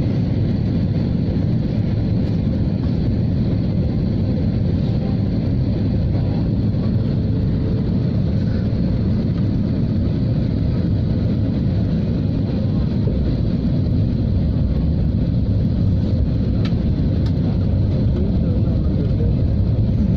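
Steady low roar inside a jet airliner's passenger cabin on descent: engine and airflow noise, even throughout, with a faint steady hum.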